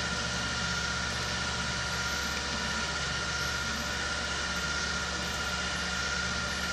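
Steady background hum and hiss with a faint high whine, unchanging throughout, with no distinct events: room tone.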